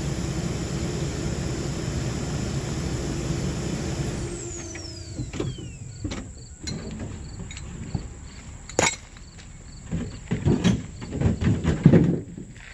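A vehicle engine running steadily, then shut off about four and a half seconds in with a falling whine. After that, clicks, clanks and thumps as the wheel straps are unhooked from the tow dolly and dropped on the gravel, loudest near the end.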